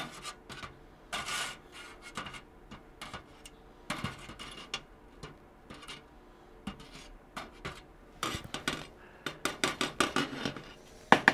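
Small metal carburetor parts and a tool clinking and scraping against the inside of a metal can of carburetor-cleaner dip as the parts are fished out. Irregular clicks and rubs, sparse at first and much busier in the last few seconds, with one sharp click near the end.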